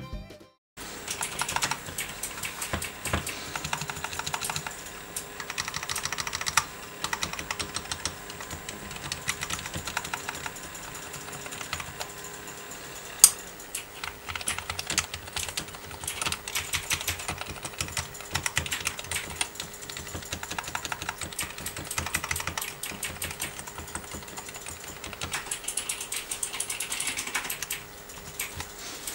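Rapid typing and key presses on a Handjoy one-handed mechanical keyboard fitted with silent switches, lubricated and padded inside with sound-absorbing foam. This is the sound test after low-noise tuning. One sharper clack stands out about thirteen seconds in.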